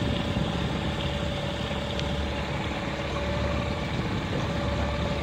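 Small boat's outboard motor idling steadily, a low rumble with a thin steady hum over it.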